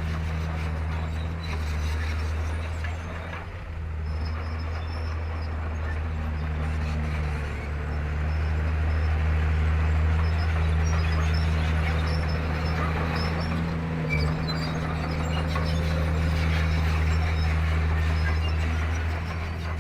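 Komatsu D31P crawler bulldozer's diesel engine running steadily under load, a little louder from about eight seconds in.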